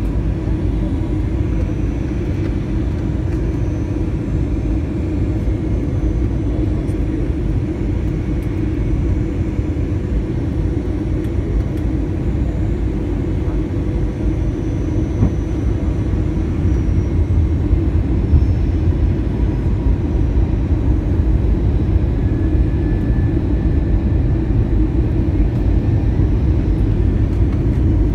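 Steady cabin noise of a jet airliner descending to land: a deep rumble of engines and airflow with a faint steady hum over it, growing slightly louder in the second half.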